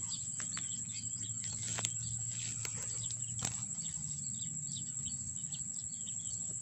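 Insects chirring steadily in a high, even tone, with scattered faint chirps and a few light clicks and rustles from hands working in dry grass.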